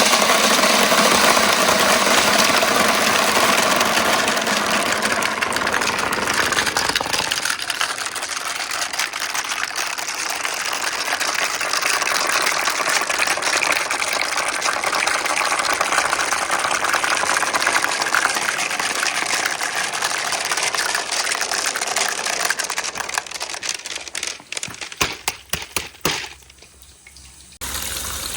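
Water rushing through a water-powered marble run after its stored water is let go, a steady gushing flow through the channels. Near the end the flow dies away into scattered clicks and drips.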